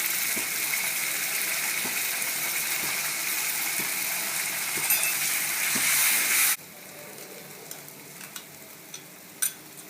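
Spiced tomato masala sizzling in oil in a wok: a steady frying hiss that cuts off suddenly about six and a half seconds in, followed by a few light clicks.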